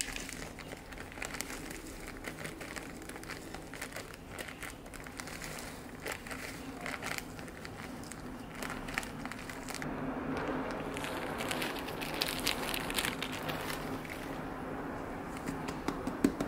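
Potting soil poured from a plastic zip-lock bag into a small plastic flower pot. The bag crinkles and the soil runs in with many small crackles, busier and louder about ten seconds in.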